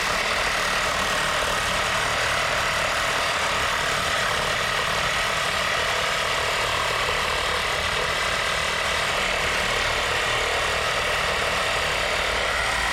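Heavy truck's engine running steadily: a constant rushing hiss with a thin, steady high whine over it.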